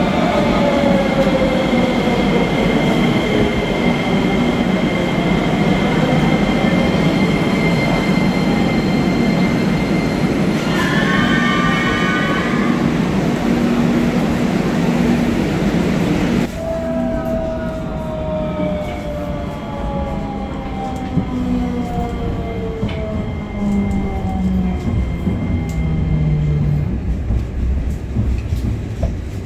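Sofia metro train pulling into the station platform, its motor whine falling in pitch as it slows. A brief series of tones sounds about eleven seconds in. After a sudden cut comes the ride inside a moving metro car, its motor whine again falling as it slows.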